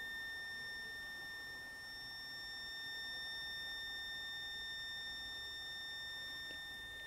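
Electromagnetic field sensor sounding a steady, high-pitched electronic tone. The investigators take it as a sign that the field around them is supposedly being disturbed.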